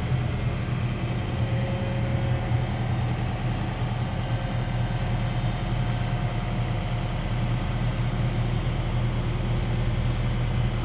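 Forklift engine running close by with a steady low hum as it brings a load up to the trailer.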